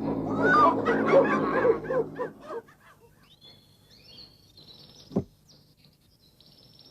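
Cartoon jungle sound effects: a loud run of short, rising-and-falling animal calls that fades out about two and a half seconds in, then faint high bird chirps with a single sharp click about five seconds in.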